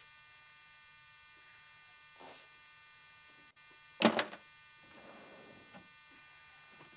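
A faint steady electrical buzz runs throughout, with one loud knock about four seconds in, followed by a softer rustle.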